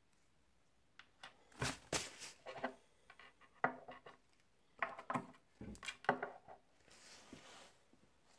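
Two small plastic-cased RC servos, a Futaba S9451 and a Sanwa ERG WX, being handled and set down on a wooden tabletop: a run of clicks, knocks and light clatter. A brief soft rustle follows near the end.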